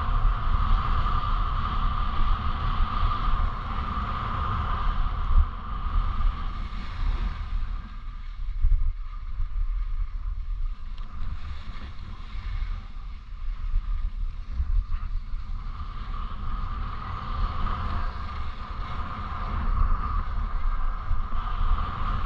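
Wind rushing over the microphone of a moving skier, with the steady hiss and scrape of skis sliding over groomed snow. The scraping eases for several seconds in the middle, then returns.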